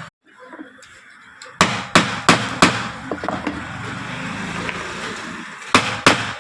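Sharp knocks over a steady hiss: four in quick succession about a second and a half in, then two more near the end.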